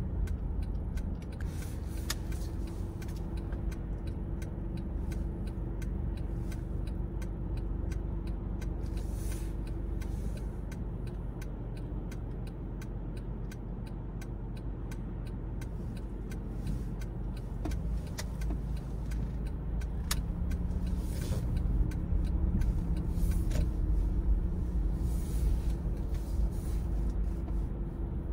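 A car driving along, with steady low engine and road rumble and a faint hum that fades in and out. Scattered small ticks run through it.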